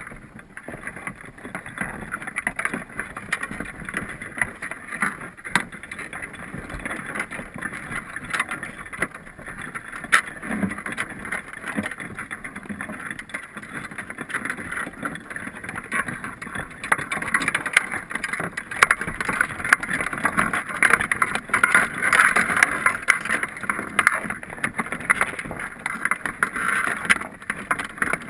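Underwater noise picked up by a camera inside a crab pot: a steady crackling hiss with many scattered sharp clicks, growing louder about two thirds of the way through.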